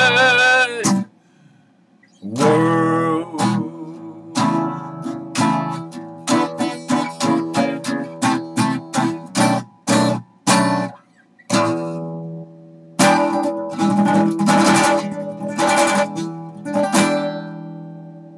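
Acoustic guitar strummed in short, sharp chord strokes with brief stops, closing with a fast flurry of strums and a final chord left to ring out and fade. A last sung note is held over the guitar in the first second.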